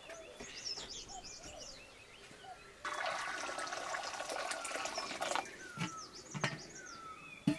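Small birds chirping throughout. About three seconds in, a loud rushing, splashing noise starts and runs for about two and a half seconds, then stops; a knock comes near the end.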